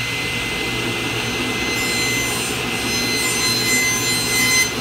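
Table saw running with its blade tilted to 45 degrees, ripping a bevel along a wooden moulding blank. There is a steady motor hum, and a higher cutting whine strengthens about two seconds in as the board is fed through.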